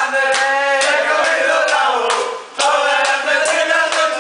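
Group of men singing a Spanish Christmas carol (villancico) loudly together, with hand claps. There is a short break in the singing about two and a half seconds in.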